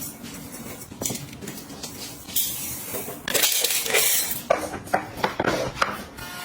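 Household items being handled and set down: light clicks and knocks, with a loud rustling noise about two and a half seconds in that lasts about a second.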